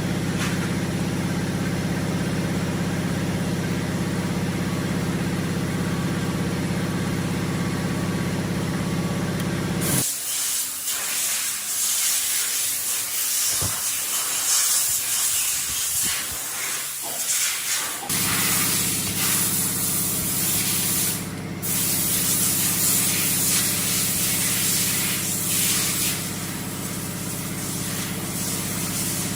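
A machine running with a steady hum, under a loud hiss. About a third of the way in the hum stops suddenly while the hiss goes on, and several seconds later the hum comes back.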